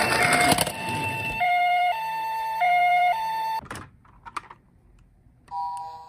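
Toy ambulance's electronic two-tone siren, switching between a lower and a higher note about every half second, over the rolling noise of its wheels for the first second and a half. The siren cuts off about three and a half seconds in, and a couple of clicks follow. Music starts near the end.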